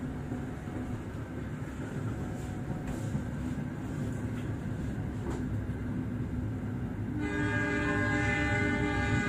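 Steady rumble of passenger train carriages rolling past on the adjacent track, with a few sharp wheel clicks. About seven seconds in, a train horn starts a loud sustained blast of several tones at once, shifting slightly partway through.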